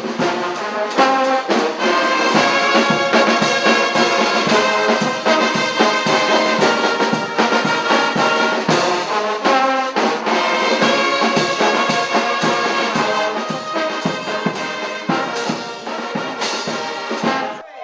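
Brass band music: trumpets and trombones playing a tune over a steady beat.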